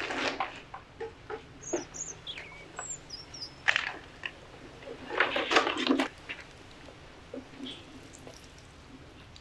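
Rustling and clunking of a load of bags and luggage being shifted and set down, in a few bursts, the loudest about four seconds in and again from five to six seconds. Birds chirp in the background.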